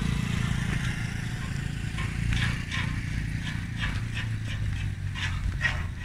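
Footsteps brushing through tall grass, a string of irregular short rustles from about two seconds in, over a steady low rumble.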